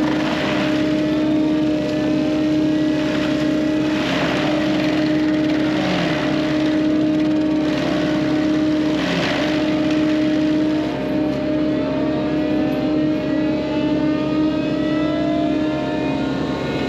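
FAE UML/HY-125VT forestry mulcher running on a Hyundai 140LC-7A excavator: a loud, steady mechanical hum with several louder grinding surges as it shreds brush and stumps.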